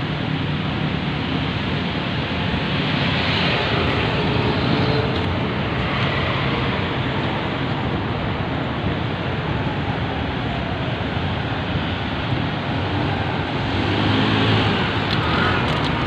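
Busy city road traffic: a steady mix of car, van, jeepney and motorcycle engines and tyre noise, swelling as vehicles pass close by about three to five seconds in and again near the end.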